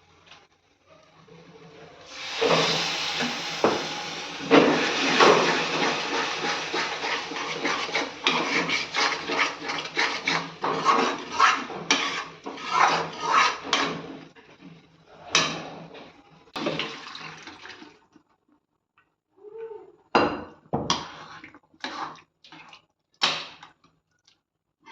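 Pots and utensils clattering over a rushing noise for about twelve seconds, thinning out, then a few separate knocks near the end.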